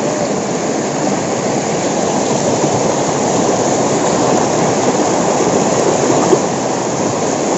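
Small waterfall on a river, with water rushing and splashing in a steady, loud wash of sound.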